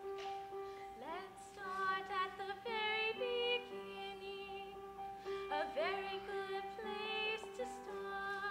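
A young woman singing a show tune in two phrases over instrumental accompaniment of steady held chords.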